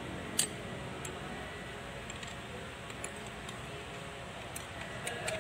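Light metal clicks and taps as a steel rod is handled against the open Kubota B6001 transmission case during reassembly, with one sharper click about half a second in and a few faint ticks after.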